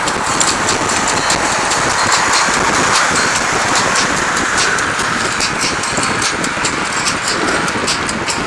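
Steady road noise of riding a bicycle along a busy road with traffic, with a fast, irregular rattling running through it.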